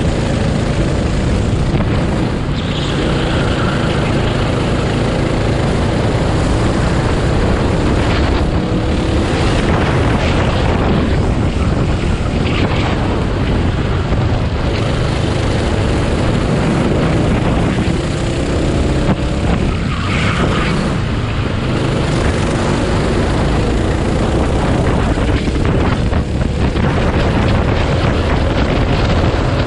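Racing go-kart engine running hard, its pitch rising and falling repeatedly as the kart accelerates and slows, with wind noise on the microphone.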